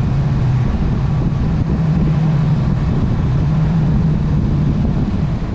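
Motorcycle engine running steadily under way, with wind buffeting the microphone; the engine note rises a little about a second and a half in.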